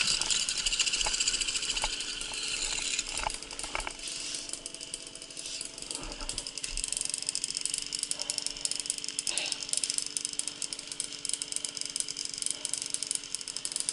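Babetta moped's small two-stroke engine running, with occasional knocks and clatter over the top.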